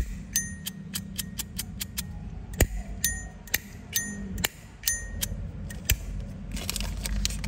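Zippo lighter lid being flicked open and snapped shut over and over, about two sharp metallic clicks a second, each with a brief high ringing tone: the bell-like chime that sellers and collectors of these lighters listen for.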